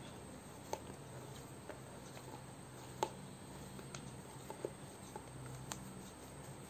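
Dough being kneaded by hand on a round wooden rolling board: a handful of faint, scattered taps and knocks, the sharpest about three seconds in, over a low steady hum.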